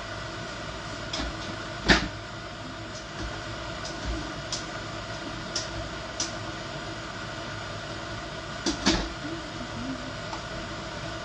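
Kitchen handling sounds: scattered sharp knocks and clicks of things being set down and moved, loudest about two seconds in and a quick pair near nine seconds, over a steady background hum.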